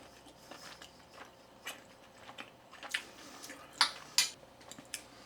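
A person chewing a bite of soft meat loaf, with a few sharp clicks, the loudest two close together a little under four seconds in.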